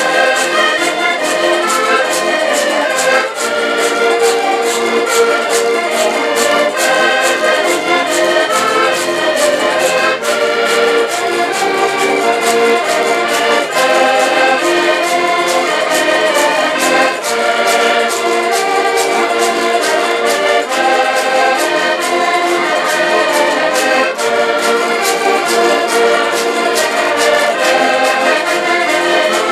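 Lively folk tune played together by several diatonic button accordions, with a small guitar strummed to a steady quick beat.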